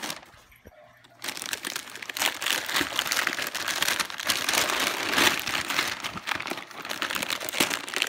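Gift wrapping paper crinkling and rustling as it is pulled off and crumpled away from a cardboard box. It starts about a second in, after a brief lull, and goes on as dense, continuous crackling.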